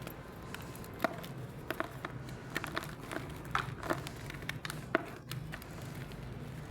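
Blocks of gym chalk being crumbled and snapped, giving irregular dry crackles and sharp little cracks, a few louder snaps about a second in and near five seconds.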